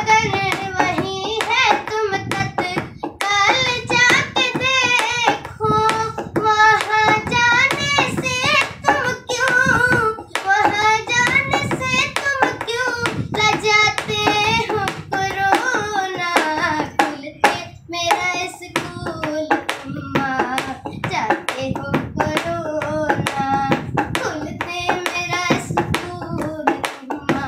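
A boy singing a Hindi song solo, with sharp taps keeping a steady beat behind his voice.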